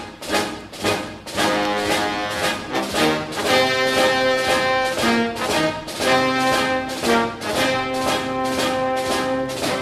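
Orchestral music led by brass, with held chords over a steady beat.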